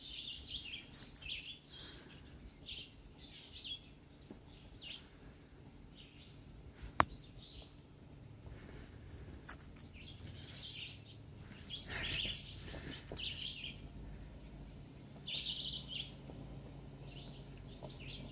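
Songbirds chirping and calling over the faint, steady low hum of a Jeep Wrangler's V6 engine crawling slowly up the trail, growing a little louder in the second half. A single sharp click comes about seven seconds in.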